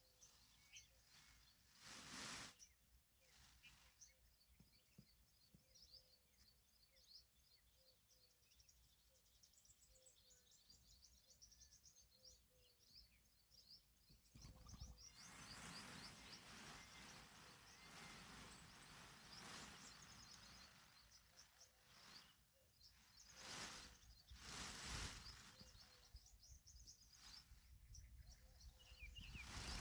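Faint outdoor ambience: small birds chirping quickly and high-pitched, with stretches of rushing noise from about halfway through.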